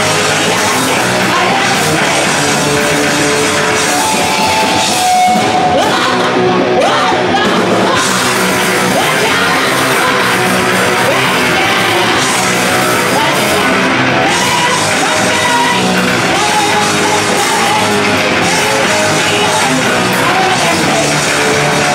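Live rock band playing loud: electric guitars and a drum kit, with a woman singing and shouting into a microphone.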